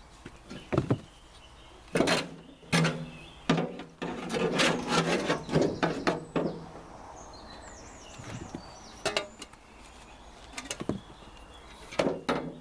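Irregular knocks, thuds and scraping as horse manure is put into a tub to make tomato feed, with a busy run of clatter in the middle.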